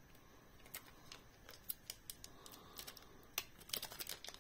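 Faint, scattered clicks and light rustling of hands handling a sensor-cleaning swab and its packaging, coming more often near the end.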